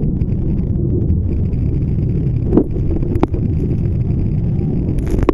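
Wind buffeting the microphone, a steady low roar, with two short knocks about two and a half and three seconds in.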